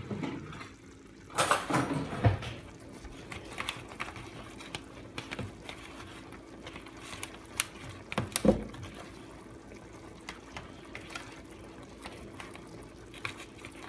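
Spoon stirring rice with pan sauce in a dish: scattered scrapes and small clinks, loudest about one and a half to two seconds in and again around eight and a half seconds, over a faint steady hum.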